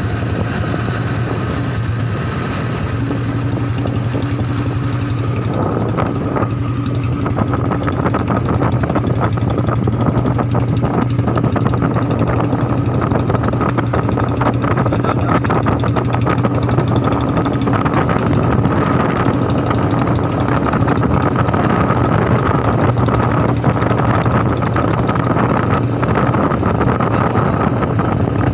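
Royal Enfield Bullet's single-cylinder engine idling at low rpm with its steady, even 'dug dug' beat.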